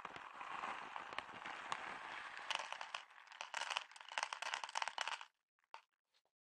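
Dry cat kibble poured from a crinkly plastic bag into a plastic bowl: the bag rustles, then the pellets rattle into the bowl as many quick clicks, stopping a little after five seconds.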